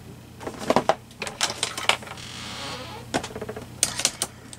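Craft materials being handled on a tabletop: a string of light clicks and taps, with a short papery rustle about halfway through.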